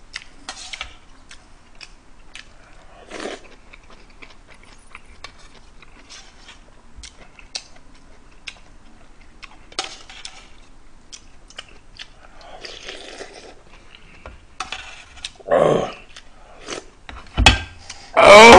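Someone eating kimchi stew: a metal spoon clicking against a metal pot, with chewing. Near the end comes a sharp thump, then a loud vocal exclamation.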